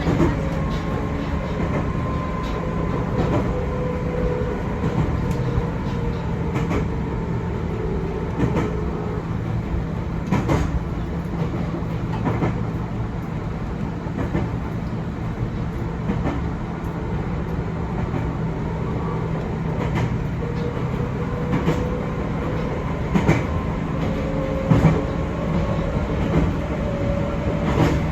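Chichibu Railway 6000 series electric train running, heard from inside the car: a steady rumble with a faint wavering whine and irregular sharp clicks of the wheels over rail joints.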